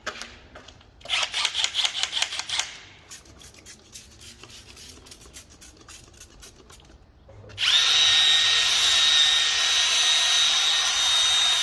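Milwaukee drill spinning a 3M sanding pad against a headlight lens: it starts about 7.5 s in and runs at a steady speed with a high, even whine. Earlier there is a quick run of clicks, then a few scattered ticks.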